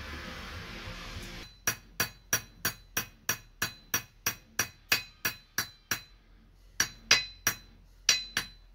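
Claw hammer tapping a small metal step wedge into the top of an axe handle to lock the head on. About a dozen quick, ringing metal-on-metal taps come at roughly three a second. After a short pause, five more spaced taps follow.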